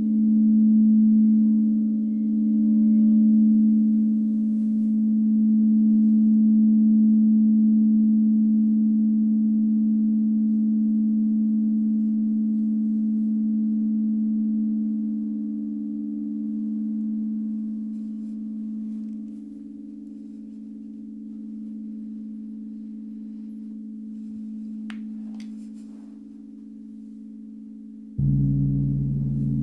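A white crystal singing bowl sung with a wand, holding one steady hum that swells and fades in waves and slowly dies away as it rings on. About 28 seconds in, a large hanging gong is struck once with a soft mallet and rings out deep and full.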